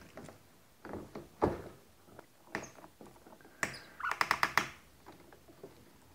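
A homemade PVC sonar transducer pole being fitted into its kayak mount: scattered hollow plastic knocks and clunks, then a quick run of about six sharp clicks about four seconds in.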